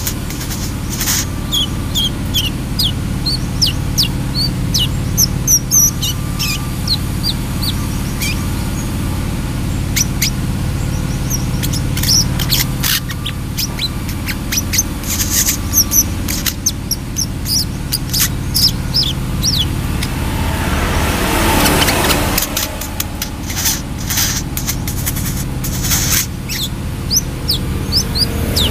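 Brown-throated sunbird (kolibri kelapa) calling in quick runs of thin, high chirps and short downslurred notes, over a steady low hum.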